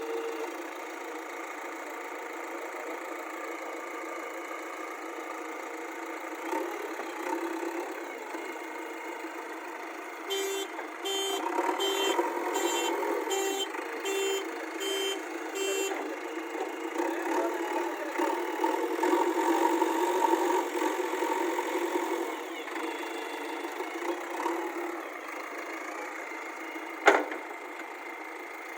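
JCB backhoe loader running, with its reversing alarm beeping about ten times, a little under two beeps a second, partway through. The machine then works louder for several seconds, and a single sharp knock comes near the end.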